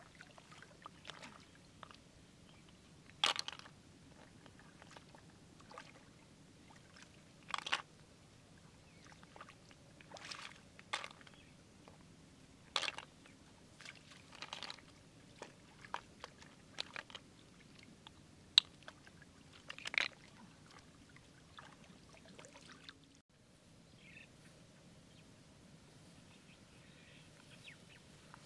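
Irregular splashes and sloshes of hands and feet moving in shallow muddy water, one every second or two, that stop about three quarters of the way through.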